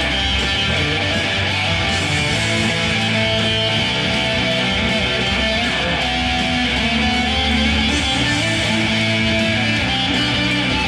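Electric guitar played through an amplifier, held notes and chords ringing on without a break.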